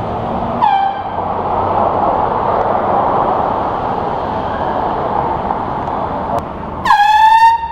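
Street traffic passing, with a brief toot from a handheld air horn a little after the start. Near the end the air horn gives one loud blast of under a second, a single tone that dips slightly in pitch as it starts.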